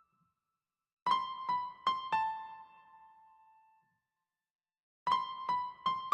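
Background music: a high electric-piano phrase of four ringing notes that fade away, a pause of about a second, then three more notes.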